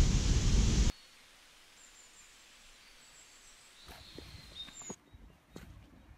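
Whitewater of a rocky mountain stream rushing loudly, cut off abruptly about a second in. Then a quiet outdoor hush with faint high bird chirps, and from about four seconds in, scattered knocks of steps on stone.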